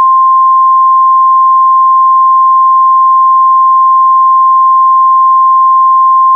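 A loud, steady single-pitch sine tone near 1 kHz, held unbroken: a broadcast stand-by tone.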